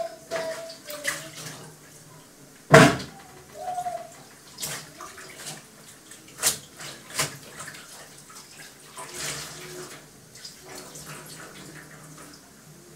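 Dishes being washed by hand at a sink: water running, with pots and utensils knocking together in sharp clatters. The loudest clatter comes about three seconds in.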